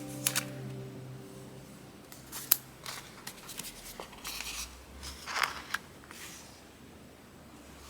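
Paper and stationery handling on a planner page: a sharp click about two and a half seconds in, then short scratchy, papery rustles around the middle. Background music fades out during the first second.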